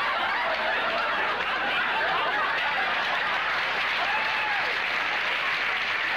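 Studio audience laughing and applauding in a steady, sustained wave, with a few individual laughs rising above it.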